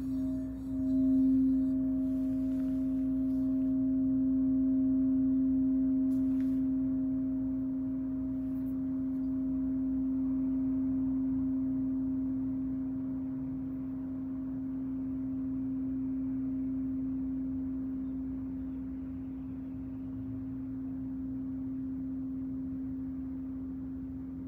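9-inch Crystal Tones alchemy crystal singing bowl tuned to C+10 (C, ten cents sharp), set ringing with a white mallet at the rim at the start and then left to sustain. One steady low tone with a fainter higher overtone, its loudness slowly swelling and easing as it rings on.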